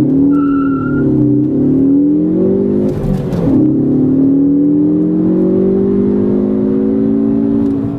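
Ford Focus ST's turbocharged 2.0-litre EcoBoost four-cylinder, heard from inside the cabin, pulling hard under acceleration, its pitch rising steadily. A gear change breaks the pull about three seconds in, and then the engine climbs again. A short beep sounds about half a second in.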